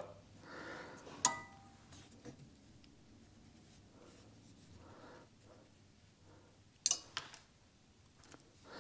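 Quiet handling of small metal parts as steel valve keepers are fitted with a lever-type valve spring compressor on a cylinder head. There is a short, ringing metal clink about a second in, and two sharp clicks near the end.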